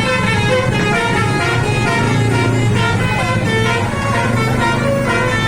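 Telolet multi-tone bus air horns playing tunes, their notes stepping up and down and overlapping, with a bus engine's low hum underneath.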